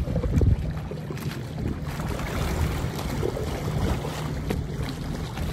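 Motorboat running slowly on a lake, a steady low rumble, with wind buffeting the microphone, loudest in a surge about half a second in.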